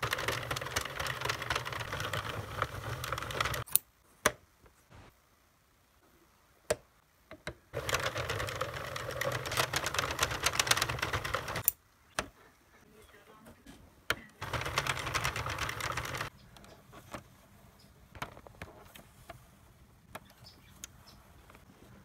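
Sentro circular knitting machine being cranked, its plastic needles and carriage clattering rapidly in three spells of a few seconds each. Single sharp clicks and knocks fall between the spells, with quieter handling after the last one.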